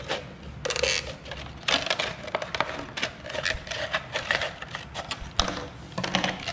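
Scissors cutting through a thin clear plastic bottle: irregular snips and crackling of the plastic as it is cut and handled.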